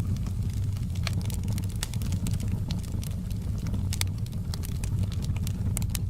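Wood fire burning in a fireplace: irregular sharp crackles and pops over a steady low rumble.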